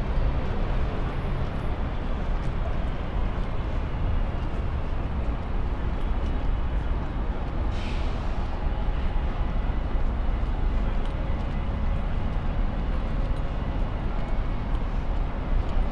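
Steady city street traffic noise with a low rumble of passing vehicles, and a short hiss about halfway through.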